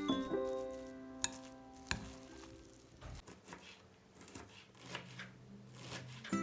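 Quiet kitchen work sounds with a couple of sharp knocks and faint rustling and scraping, typical of preparing food with a knife or spoon. Guitar background music fades out about a second in.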